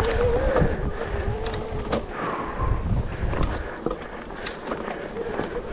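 Electric mountain bike's motor whining steadily under pedalling, its pitch wavering a little. Several sharp clicks and knocks come from the bike over the trail.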